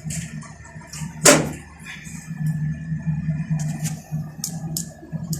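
A steady low hum with one loud knock about a second in, then several light, sharp clicks near the end, like metal parts or a cover being handled.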